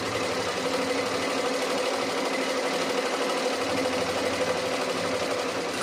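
Domestic sewing machine driven by an add-on electric motor, running steadily at speed as it stitches cloth, with a constant hum and a fast, even needle rattle.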